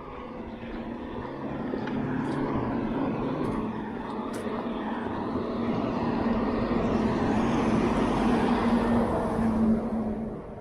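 Road traffic passing: a lorry's engine drone and tyre noise grow louder and drop off sharply as it goes by near the end.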